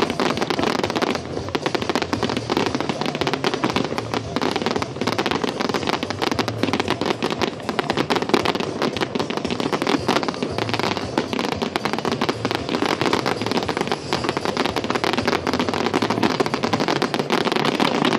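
Fireworks going off in a dense, continuous barrage of rapid bangs and crackles, with no pause.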